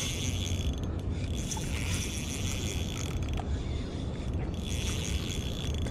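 Shimano Stradic CI4+ 1000 spinning reel whirring in repeated bursts of about a second, roughly every one and a half to two seconds, as line is won back on a hooked fish. A steady low rumble runs underneath.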